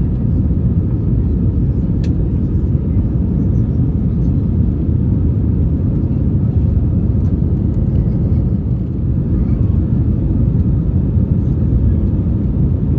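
Steady low rumble inside the passenger cabin of an Airbus A320-214, from its CFM56 turbofan engines. A single small click about two seconds in.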